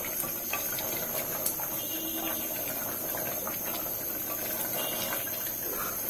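Taro and beef curry thinned with hot water being stirred with a wooden spatula in an aluminium pressure cooker over a gas flame: a steady soft wash of moving liquid with faint scrapes and taps of the spatula.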